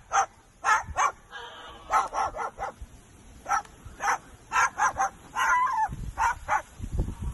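Sulphur-crested cockatoo mimicking a dog: a long series of short, sharp barks, some coming in quick runs of two or three.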